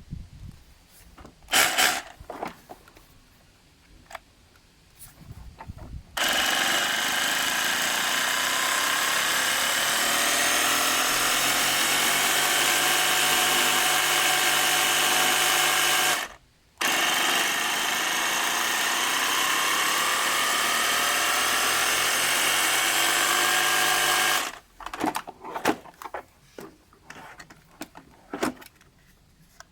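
Bosch GBH 18V-26 F cordless rotary hammer running in two long steady bursts of about ten and eight seconds, with a brief stop between, its brushless motor giving a whine. Clicks and handling knocks come before and after.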